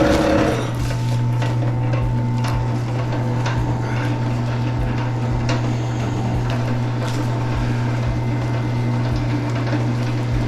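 Electric wire-stripping machine running with a steady motor hum as a thick cable is fed through its blades, with scattered clicks and knocks. A louder grinding at the start eases off about half a second in.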